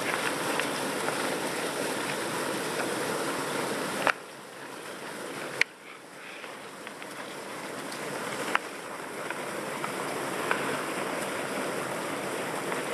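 Stream water running under the ice and through an open hole in it, a steady rushing. About four seconds in the sound drops away suddenly after a sharp click, another click comes a second and a half later, and the rushing builds back up, with one more click past the middle.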